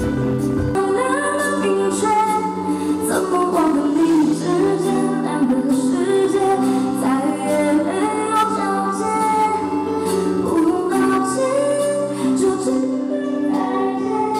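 A live pop song: a singer's amplified voice carries a slow, held melody over band accompaniment through the stage PA.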